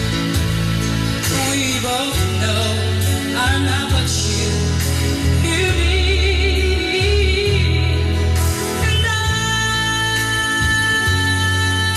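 A song with singing over a heavy bass line, played through a vintage Pioneer SX-3800 solid-state receiver. The voice holds long, wavering notes in the second half.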